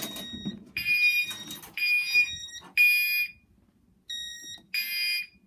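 Gentex Commander 3 fire alarm horn sounding in the temporal-3 (code 3) evacuation pattern: three short blasts about a second apart, a pause of about a second and a half, then the next set of blasts starting. It is muffled by tape over the horn, and is driven by the panel in alarm after a pull station was pulled.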